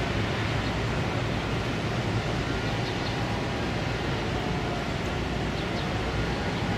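Steady low rumble with a hiss over it from a large container ship passing close by on the river.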